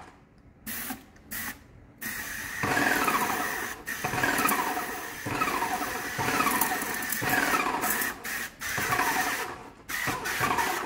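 Electric airless paint sprayer's pump kicking in about two seconds in and running in an even rhythm of strokes, each one a falling whine, a little more than once a second. It is pushing fluid out through the hose and gun into a bucket until paint reaches the tip after priming.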